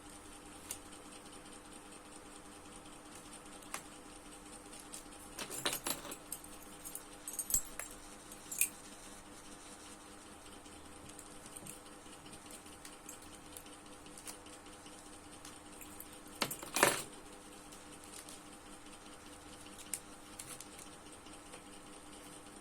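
Small hard objects being handled and set down: scattered clicks and light rattling, with louder clattering bursts about five to eight seconds in and again near seventeen seconds, over a faint steady electrical hum.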